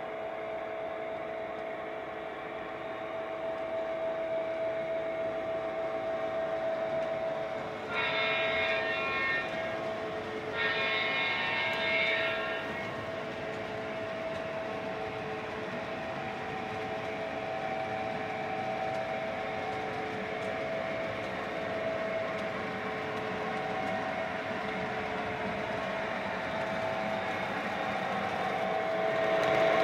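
Model Santa Fe SD60M diesel locomotive's onboard sound system running with a steady hum, sounding two horn blasts about 8 and 11 seconds in, the second longer. The running noise grows louder near the end as the train approaches.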